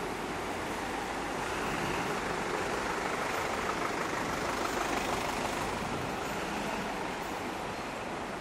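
Steady street traffic noise from trucks and vans idling and moving slowly, an even rumble and hiss that swells slightly in the middle.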